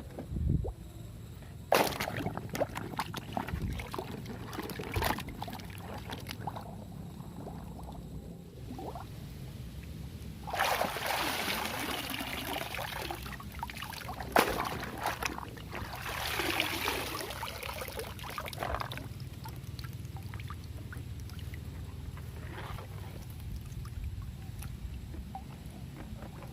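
Water pouring and trickling over plastic toy vehicles as they are washed, in two longer spells, with scattered knocks and clicks from handling the toys.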